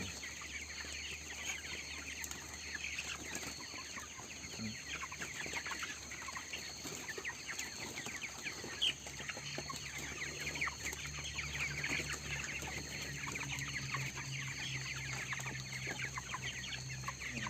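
A large flock of 22-day-old broiler chickens peeping and clucking, many short calls overlapping without pause. A low steady hum joins about nine seconds in.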